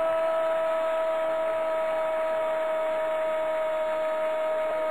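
A Spanish-language football commentator's long drawn-out "gooool" goal call, one unbroken note held throughout, over crowd noise.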